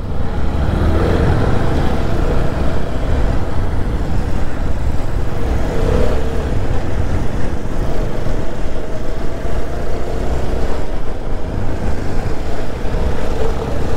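TVS Apache 160 4V motorcycle riding at road speed: the engine runs steadily under a heavy low rumble of wind rushing over the mounted microphone.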